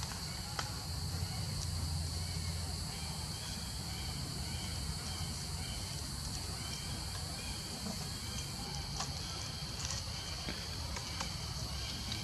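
Steady high-pitched drone of insects, with a low rumble underneath and a few faint clicks.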